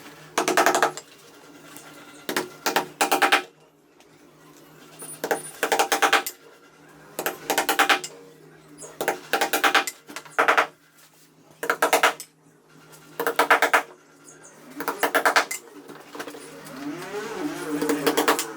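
Repeated short bursts of rapid metallic tapping and clattering, often two or three in quick succession, recurring every second or two.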